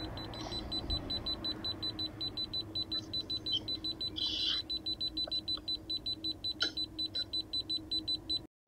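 Kaiweets digital multimeter's non-contact voltage detector beeping rapidly, about six short high beeps a second, with its red light on: it still senses live voltage in the cables. The beeping cuts off abruptly near the end.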